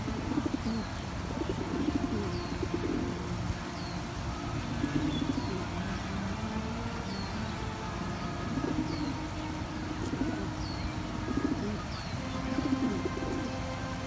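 Feral rock pigeons cooing, low warbling coos repeated over and over by several birds, with a faint short high chirp repeating about once a second behind them.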